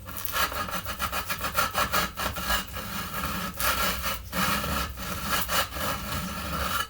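Repeated abrasive scraping strokes on the router-table set's sliding rail, working it down so it moves freely in its slot.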